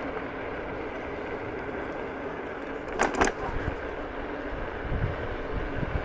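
Egret X electric scooter riding over gravel: a steady rolling noise from the tyres, a sharp double clatter about three seconds in, and low thumps near the end.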